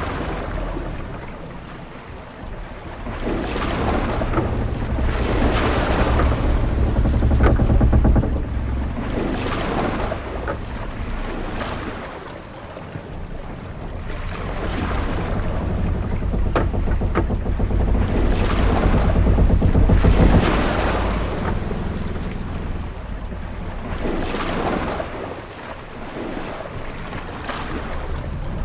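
Ship-at-sea ambience: waves washing and wind rushing over a low rumble, swelling and fading slowly, with a few short ticks.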